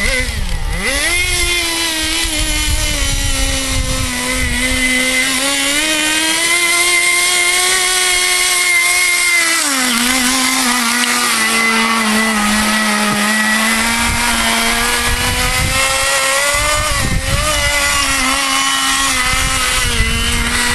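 Small nitro glow engine of a Kyosho Blizzard RC snowcat running on 10% nitro fuel, its pitch rising and falling with the throttle: a quick dip near the start, a climb to a higher pitch for several seconds, then a drop about ten seconds in to a lower, steadier pitch.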